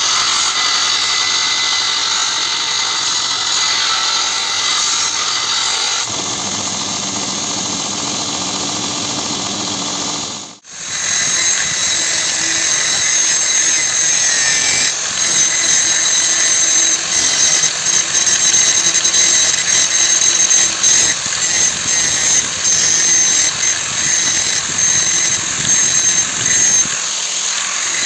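An electric power tool running on the steel of an old saw blade, with a steady high whine over a harsh noise. It cuts out abruptly about ten seconds in and starts again, after which the load rises and falls as the tool bites and eases off.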